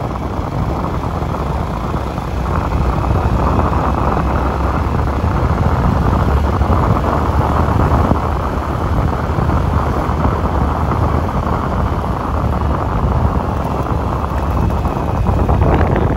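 Steady rush of wind buffeting the microphone on a moving vehicle, over the low running noise of its engine and tyres on the road.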